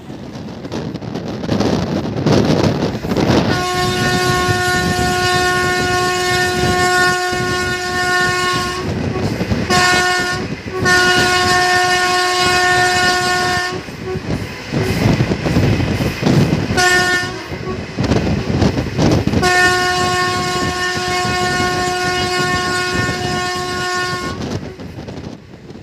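Train horn sounding at one steady pitch in several long blasts, broken by a couple of short toots. Under it the rumble and clatter of a train running along the track.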